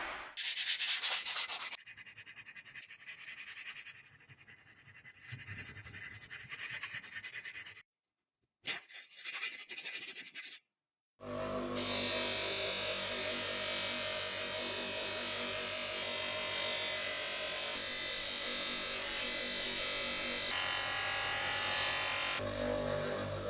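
Short workshop clips cut together: a loud harsh burst of abrasive noise, then quieter rubbing and scraping, broken by two dead-silent cuts, followed by a long steady hum with many held tones.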